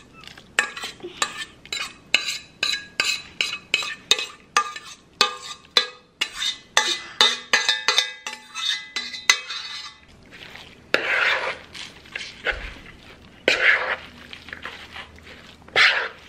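A metal spoon clinking and scraping against a stainless steel saucepan in many quick, ringing taps as sautéed onions and butter are knocked out into a mixing bowl. About ten seconds in, it changes to a few slower scraping strokes as the thick potato-and-cream mixture is stirred in the bowl.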